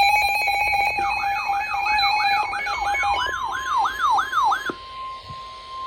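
Emergency alert tones: a steady pulsing tone, joined about a second in by quick repeating falling siren-like sweeps, about three a second. Near the middle a single steady tone takes over and holds on its own after the sweeps stop.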